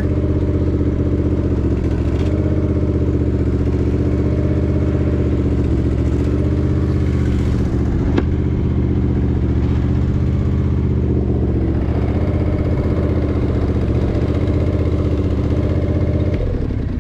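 John Deere riding mower engine running steadily, then shut off near the end. A single sharp click partway through.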